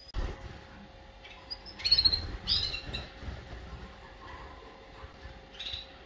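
Canaries giving short, high chirping calls: a few chirps about two seconds in, another group half a second later, and one more near the end.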